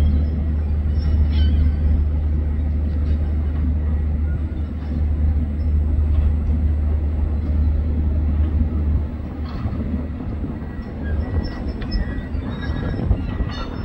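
Low, steady rumble from construction-site machinery, mixed with wind on the phone's microphone. The deepest rumble eases about nine seconds in.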